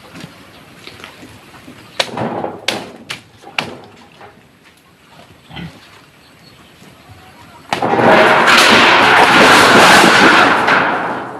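A few sharp knocks, then a pig squealing loudly for about three seconds near the end, harsh and noisy before it fades off.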